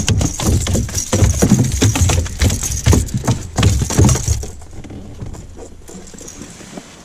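Rapid, irregular knocks and thumps, loud for about four and a half seconds and then dying away: a freshly caught zander thrashing against the boat.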